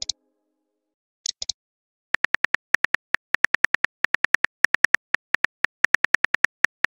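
Simulated smartphone keyboard key clicks from a texting app, a rapid regular run of short ticks, about six or seven a second, as a message is typed out letter by letter. Before the typing begins there are a few brief clicks at the start and about a second in.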